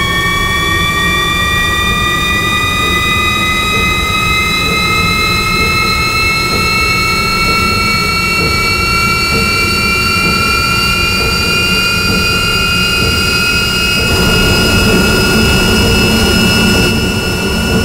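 Flying-saucer sound effect: a loud low rumble under a whine of several tones that climbs slowly in pitch, swelling a little near the end.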